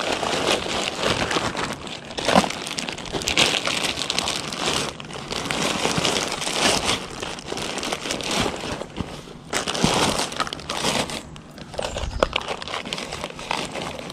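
Plastic zip-top bags of soft plastic fishing lures crinkling and crackling as they are handled and pushed into a backpack.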